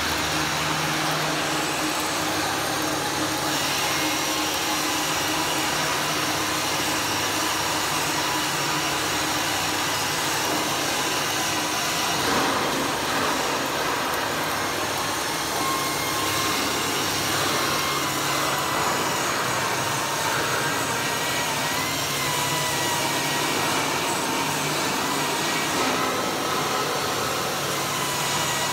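Arc welding on steel: a steady hiss and crackle from the arc, over a constant machine whine from an angle grinder cutting or grinding steel nearby.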